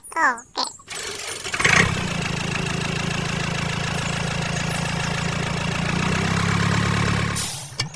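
A small motor starts about a second in and runs steadily with a low hum, then cuts off just before the end.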